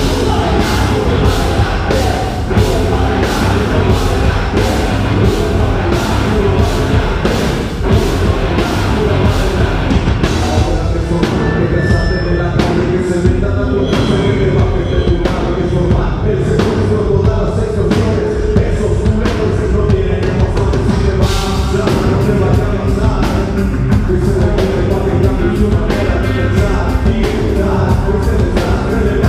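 A rock band playing a heavy song live, in an instrumental passage: a drum kit beating a steady, even rhythm under guitars, with a sustained guitar note held from about halfway through.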